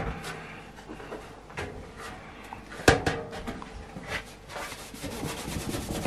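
A steel PC case chassis being handled: a sharp metallic knock about three seconds in and a few lighter taps, then a cloth rubbing against the sheet metal near the end.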